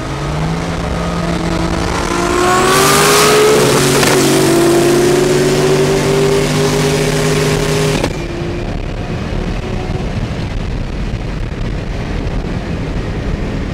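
Turbocharged 402ci V8 of a Chevy pickup under full throttle, heard from inside the cab, its pitch climbing as it accelerates, with a loud burst of hiss about three seconds in. About eight seconds in the engine sound drops off suddenly, leaving steady road and wind noise in the cab.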